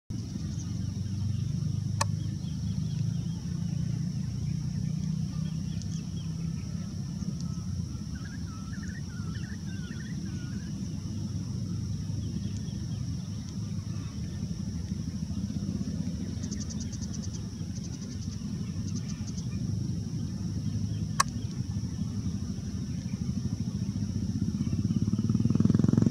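Steady low outdoor rumble with a faint high hiss, and a few faint brief chirps and clicks; it swells near the end.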